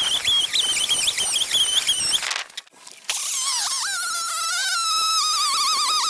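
Homelite XL two-stroke chainsaw cutting, its sound sped up by the time-lapse into a high, wavering whine. The sound drops out briefly a little past two seconds in, then the saw comes back at a lower, steadier pitch.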